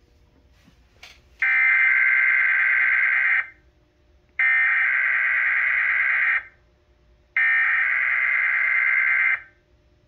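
Emergency Alert System SAME header for a Required Weekly Test: three identical bursts of buzzing digital data tones, each about two seconds long with a second's pause between them, announcing the start of the test relay. A brief click comes just before the first burst.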